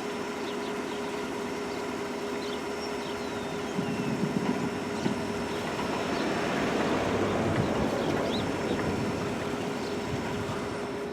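A vehicle passing: a broad rushing noise that swells about four seconds in and fades away again, over a steady low hum.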